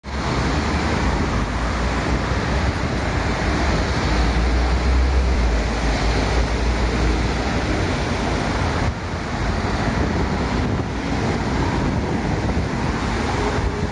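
Steady rushing noise with a heavy low rumble: wind buffeting a phone microphone over city street traffic.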